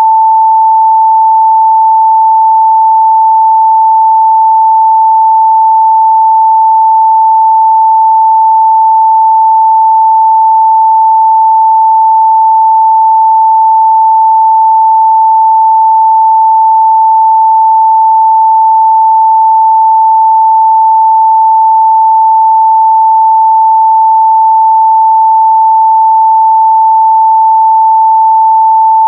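A pure 885 Hz sine-wave test tone, loud and steady at one pitch, with no change.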